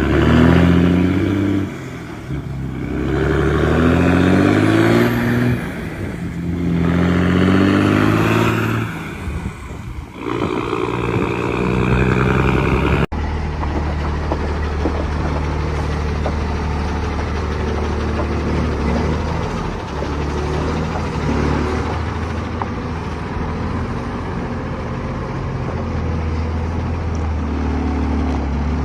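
Iveco Tector truck's diesel engine pulling through the gears. Its pitch rises under load and drops briefly at each shift, about four times in a row. After a cut about halfway through, a truck engine runs at a steady pitch.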